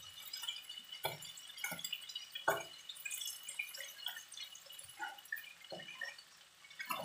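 Shrimp frying in oil in a non-stick wok, crackling and popping, while a spatula stirs them with several short scraping knocks against the pan.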